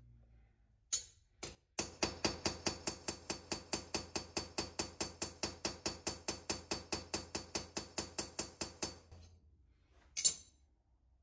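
Carbide straightening hammer tapping a hardened 64 HRC Magnacut chef's knife blade on a bench-vise anvil: a couple of single taps, then a fast, even run of about five light blows a second for some seven seconds, each with a bright metallic ring. The ball-face peening is working a banana-shaped warp out of the blade. One sharp clack just after ten seconds as the blade is laid on a flat plate.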